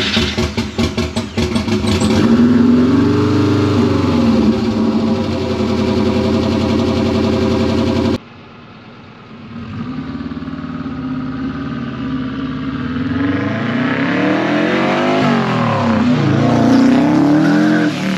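Turbocharged Subaru engine in a 1973 VW Super Beetle, just fired on a cold start, running unevenly at first, then revved up and back down. After a cut, the car comes closer, revving and accelerating, and drives past.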